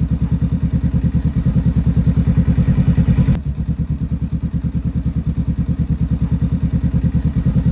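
Honda Rebel 500's parallel-twin engine idling through a Diablo Dark Thunder aftermarket exhaust: a loud, steady, evenly pulsing exhaust beat. There is a brief break about three and a half seconds in.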